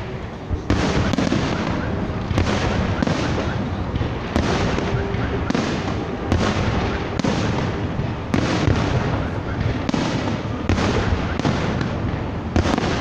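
Aerial fireworks bursting in rapid, overlapping succession: a dense run of bangs and crackling with a sharp report every half second or so.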